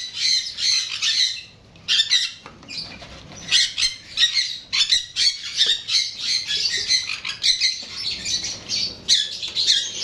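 A chorus of many caged pet birds calling at once: lots of short, high calls overlapping with no break.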